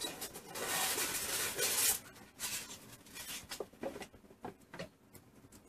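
Cardboard packaging rustling and scraping as a box is opened and a mug is slid out of its insert, followed by a few light taps and knocks as it is handled.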